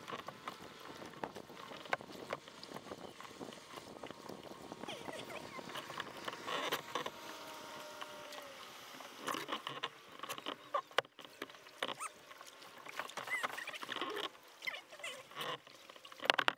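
Double-bladed kayak paddle strokes: the blades dip and splash in the water, with drips and small clicks, in uneven clusters.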